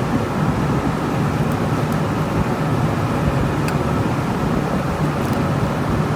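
Steady running machinery noise, a low hum under an even rush, with a few faint ticks.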